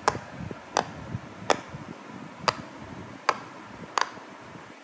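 Silicone pop it fidget toy with fingers pressing its bubbles one at a time, giving six sharp pops a little under a second apart.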